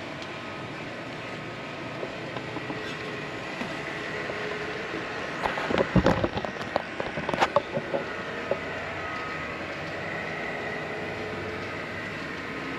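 HO scale model trains running on a layout: a steady hum with a faint whine of small locomotive motors and wheels on track, with a burst of clicking and clattering about six to eight seconds in.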